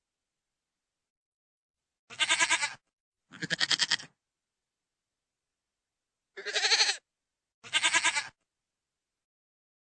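Goat bleating: four wavering bleats in two pairs, each under a second long, with silent gaps between them.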